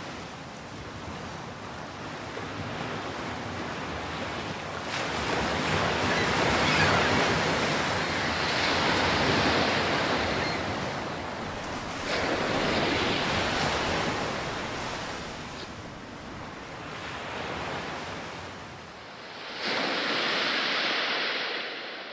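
Sea surf breaking and washing in, swelling and fading every few seconds, with wind; a louder surge cuts in near the end.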